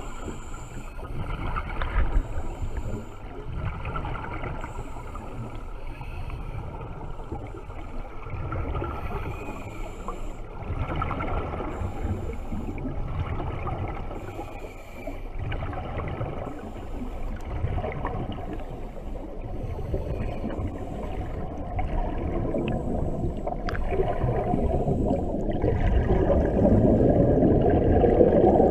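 A scuba diver's exhaled bubbles gurgling out of the regulator, recorded underwater and heard as a muffled, continuous rumble. It swells louder near the end as a thick bubble plume rises close past the camera.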